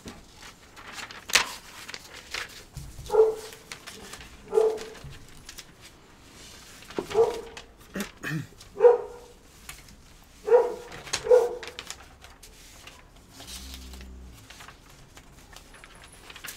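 A dog barking off-camera: about six short barks spaced a second or two apart, with a few faint clicks between them.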